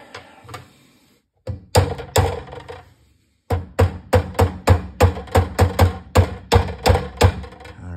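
Plastic-faced mallet tapping a roll pin home through a rifle's barrel bracket: two taps, then a steady run of about a dozen sharp blows, three to four a second.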